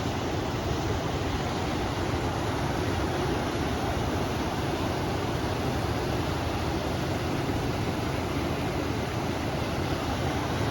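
Flowing river water and wind, a steady even rushing noise heaviest in the low range, with no let-up or change.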